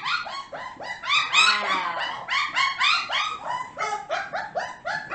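Four-to-five-week-old puppies yipping and whining: a rapid, unbroken string of high-pitched calls, several a second, with a longer wavering whine about a second and a half in.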